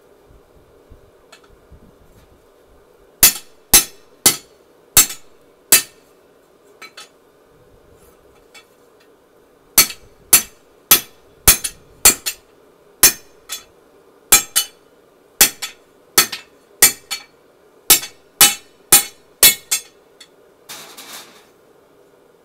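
Hand hammer striking steel on an anvil, forging a tomahawk head, each blow ringing sharply. Five blows come first, then after a pause a run of about seventeen at a little under two a second, and a short rushing noise near the end.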